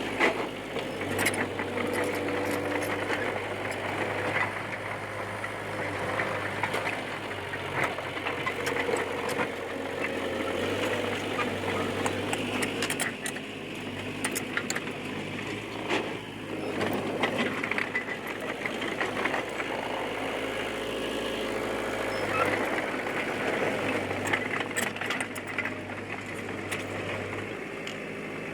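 D20P crawler bulldozer's diesel engine running steadily at work, its low note shifting now and then, with frequent metallic clanks from the tracks.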